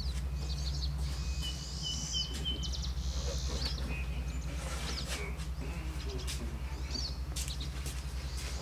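Small birds chirping and calling in short phrases and trills, over a steady low hum.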